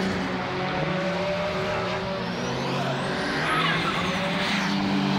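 Drift car's engine running at high revs with tyres squealing as it slides past sideways. A high whine rises and then falls about three and a half seconds in.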